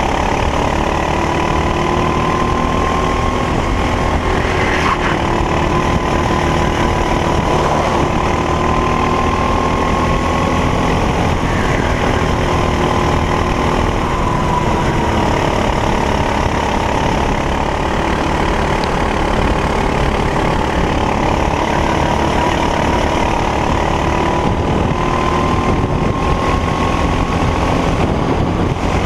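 Racing kart engine running hard at high revs, its pitch rising and falling gently as it works through the lap.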